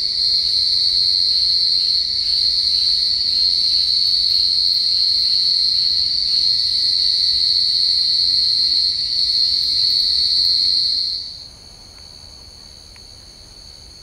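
Forest insect chorus: a loud, steady, high-pitched shrill that drops abruptly about eleven seconds in to a fainter steady trill.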